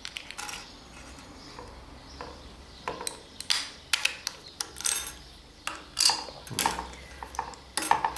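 Irregular sharp clicks and clatter of small plastic and metal parts as the red plastic head of a Tape Binder TB-R Plus tying tool is prised open with a knife and taken apart on a tabletop. The clicks are sparse at first and come thick and fast from about three seconds in.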